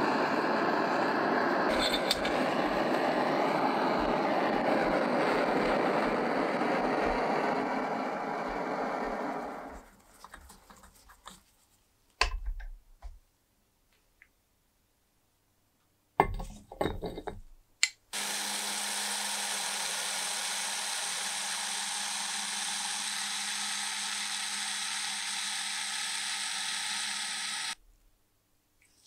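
A gas torch flame burns with a steady hiss for about nine seconds, heating a seized screw in a cast metal lamp housing to free it. A few sharp knocks follow. Then a small power tool runs steadily for about nine seconds and cuts off suddenly.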